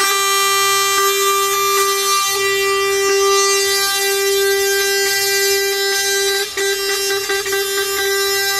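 Truck air horn sounding in one long steady tone, held on the same pitch, with a few brief breaks.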